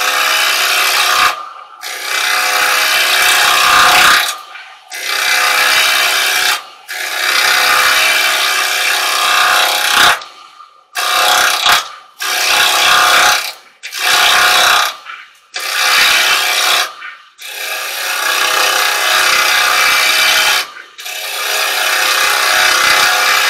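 Carbide chisel held flat against a spinning silver birch bowl blank on a wood lathe, scraping wood off fast and leaving a rough surface. It is loud and comes in about a dozen passes, each a second or two long, with short breaks as the tool comes away.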